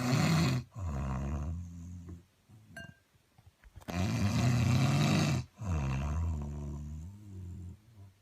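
A man snoring loudly: two snores about four seconds apart, each a harsh, rasping in-breath followed by a lower-pitched out-breath.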